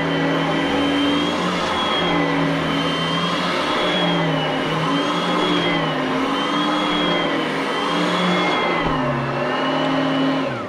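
Upright vacuum cleaner running while being pushed back and forth over carpet, its motor whine swaying up and down in pitch about every two seconds with each stroke. At the very end the pitch drops and the sound falls away as the motor winds down.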